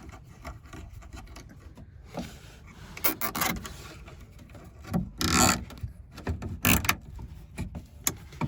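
Nylon cable tie being pulled tight through its ratchet head, in a few short rasping zips with handling rubs between.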